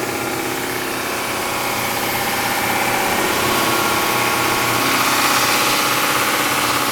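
Bridgewood BWS-15 wide belt sander running with its head and conveyor switched on: the 7.5 hp main motor and drive give a steady machine hum with several whining tones, growing a little louder over the first few seconds.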